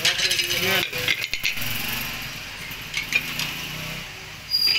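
Crockery plates and bowls clinking and knocking as they are handled and set down on a counter, with plastic wrapping rustling; a short ringing clink near the end.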